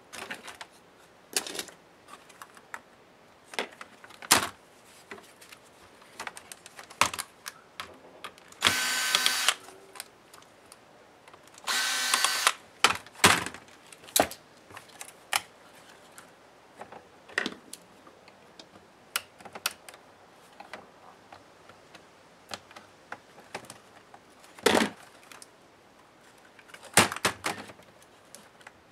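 Clicks, taps and knocks of plastic and metal laptop parts and small hand tools being handled during a laptop teardown. Two longer scraping noises, each about a second long, come about nine and twelve seconds in.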